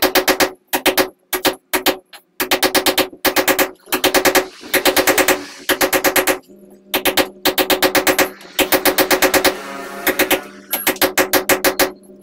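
Steel chisel struck with a hammer against a concrete block wall, chipping out a recess for electrical boxes and conduit: quick runs of sharp ringing strikes, several a second, with short pauses between runs.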